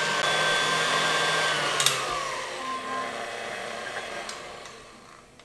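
Stand mixer motor running on high, whipping eggs and sugar, then a click about two seconds in and the motor whine falls in pitch and fades as the beater spins down.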